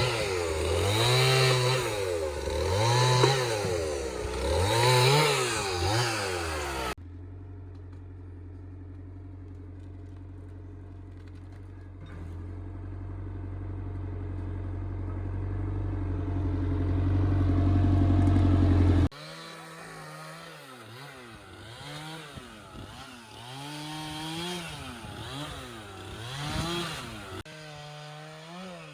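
A chainsaw cutting into a tree trunk, its engine revving up and falling back every second or two. Partway through, a steadier, lower engine drone rises slowly in pitch and loudness for about twelve seconds. Then it stops abruptly and a quieter chainsaw resumes its revving.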